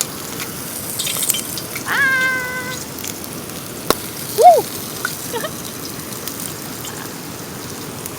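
Steady rain hiss, broken by a short meow-like call about two seconds in and a brief higher squeak-like call a couple of seconds later, just after a sharp click.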